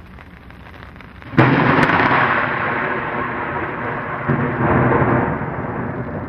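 Thunder sound effect: a low rumble builds, then a sudden crack of thunder comes about a second and a half in and rolls on, slowly fading.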